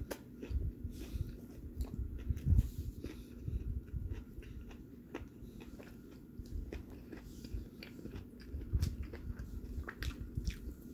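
A man biting into a fried chicken sandwich and chewing the mouthful close to the microphone, with irregular small mouth clicks.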